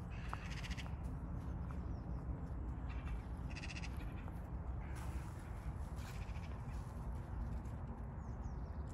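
Several short, raspy animal calls in the distance, the strongest about three and a half seconds in, over a steady low rumble.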